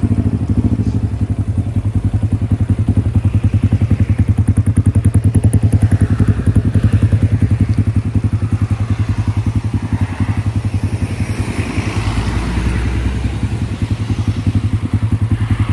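KXD 612 Adler's 140 cc single-cylinder four-stroke engine idling steadily just after its first start, left running to warm up and draw oil through.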